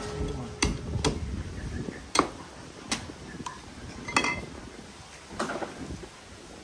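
Cleaver hacking open the top of a young green coconut: about six sharp knocks, roughly a second apart, the loudest a little over two seconds in.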